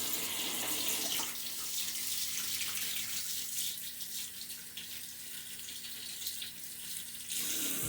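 Faucet running into a sink as hands are washed under it, shut off abruptly at the end.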